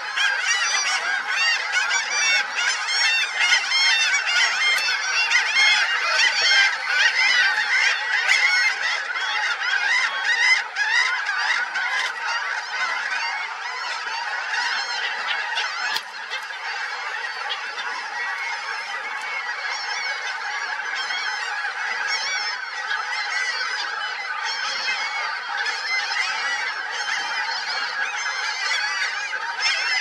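A large flock of birds calling all at once, a dense chorus of many overlapping harsh, honking calls. It dips briefly about halfway and goes on a little quieter.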